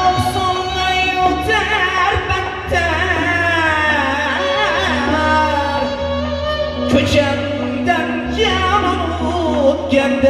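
Uzbek folk song performed live: a man sings long, wavering, ornamented phrases. He is accompanied by a bowed ghijak spike fiddle, a plucked long-necked lute, a doira frame drum with a few sharp strikes, and held low keyboard bass notes.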